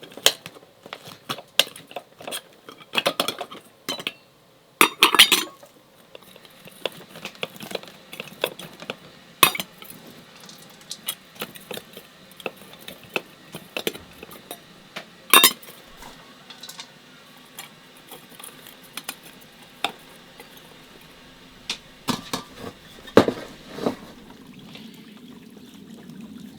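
Kitchenware being handled: utensils, dishes and pots clinking and knocking at irregular intervals, with a few louder knocks about five, fifteen and twenty-three seconds in.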